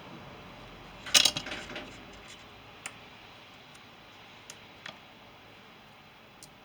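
Small hard objects being handled: a quick cluster of clicks and rattles about a second in, then a few faint single clicks.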